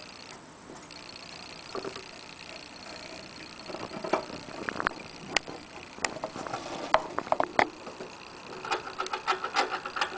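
Irregular light clicks and taps from hamsters moving about a cage of wood shavings with a water bottle's metal sipper tube. The clicks come sparsely at first and then thicken into a quick run near the end.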